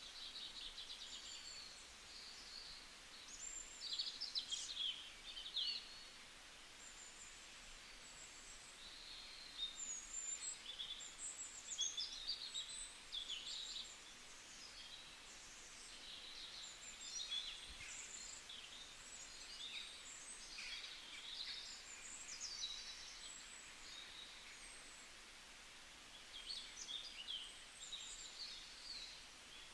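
Forest birds singing and calling, several at once: short chirps and quick trills overlapping in irregular bursts over a faint steady hiss.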